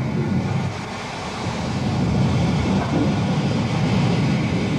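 Metropolitan Railway E class 0-4-4 steam tank locomotive on the move: a steady rumbling noise with no clear beat.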